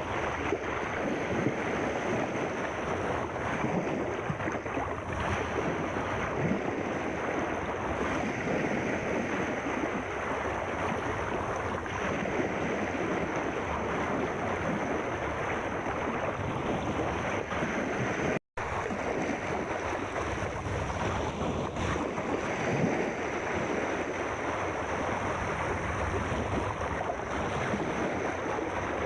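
Steady rushing, fizzing water noise at an even level, with no rise and fall of breaking waves, and a faint high steady tone above it. It drops out to silence for a split second about two-thirds of the way through.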